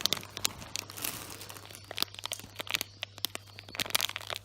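Plastic packaging crinkling and rustling as it is handled, with irregular sharp crackles.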